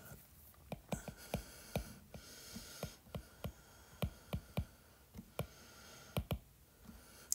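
Stylus tapping on a tablet's glass screen while handwriting: a series of soft, irregular clicks with a faint hiss between them.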